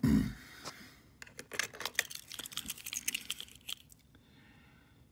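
Small die-cast metal and plastic toy trucks being handled: a dull thump at the start, then a quick run of small clicks and rattles as a model is picked up and turned over in the fingers, stopping about four seconds in.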